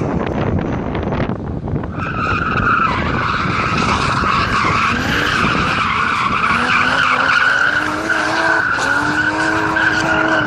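BMW E30 Touring with a Toyota 1JZ straight-six swap, drifting: the engine is held high in the revs while the rear tyres squeal steadily from about two seconds in. The engine note climbs a little about six seconds in and holds there.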